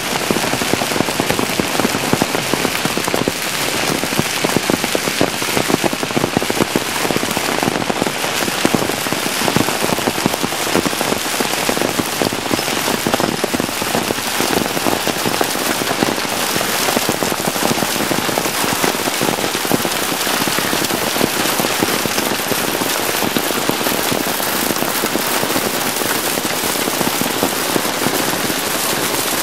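Hail and heavy rain pelting down in a dense, steady clatter of countless small hailstone impacts on pavement and parked cars.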